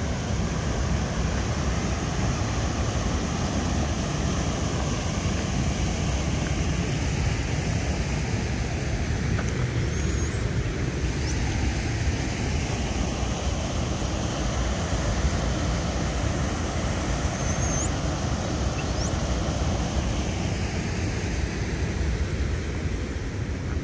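Steady wind buffeting the microphone over the sound of sea surf, an even rushing noise heaviest in the low end. A few short, faint, high rising whistles break through around the middle.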